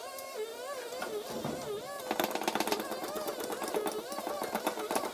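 Rapid light hammer taps on the steel body of a 1955 VW panel van during panel beating, growing denser about two seconds in, with a wavering melody running underneath.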